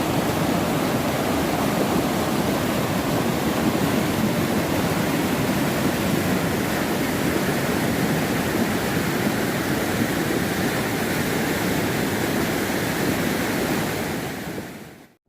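Waterfall on the river, falling water rushing steadily, then fading out near the end.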